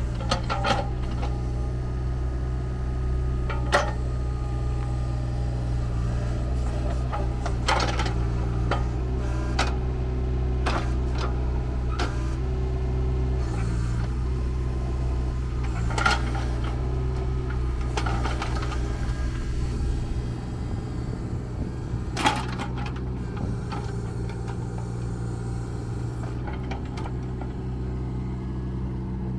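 A Bobcat E20 mini excavator's 13.9 hp diesel engine running steadily while the arm and bucket are worked, with scattered sharp knocks from the digging gear.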